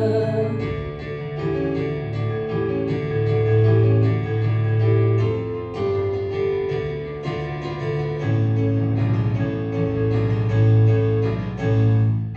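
Instrumental music led by keyboard, playing a run of chords over held bass notes, ending near the end.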